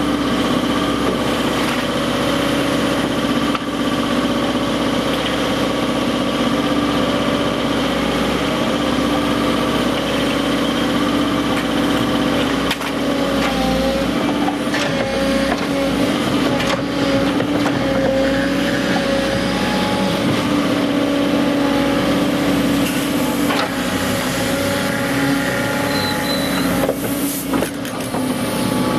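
Volvo EC140 crawler excavator's diesel engine running steadily while the machine works, its pitch wavering slightly now and then, with a few short knocks.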